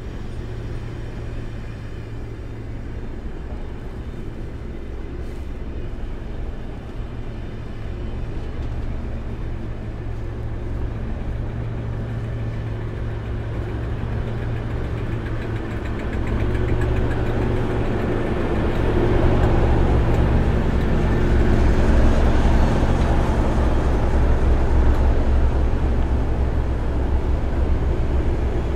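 Class 37 diesel locomotive's English Electric V12 engine running with a deep, steady drone that grows louder a little past halfway and stays loud toward the end.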